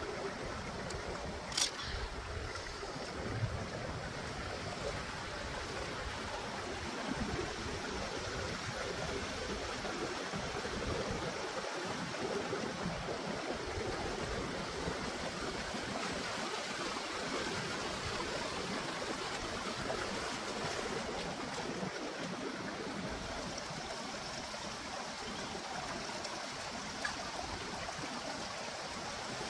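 Shallow rocky stream flowing and trickling steadily, with a single sharp click about two seconds in.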